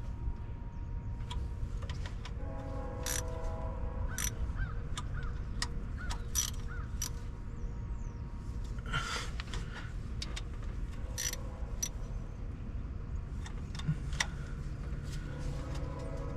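Scattered small metallic clicks and clinks of hand tools working on the injector connectors of a diesel engine, over a steady low rumble.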